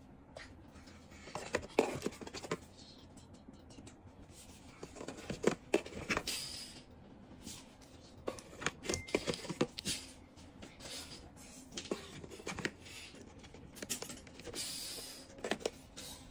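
Cellophane-wrapped cardboard lighter boxes being handled: irregular crinkling of the plastic wrap with light clicks and scrapes, in several short clusters.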